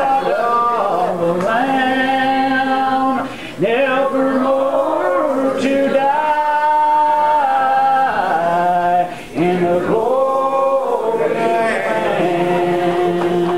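Congregation singing a slow, unaccompanied hymn in long, drawn-out notes. There are short breaks between lines about three and a half and nine seconds in.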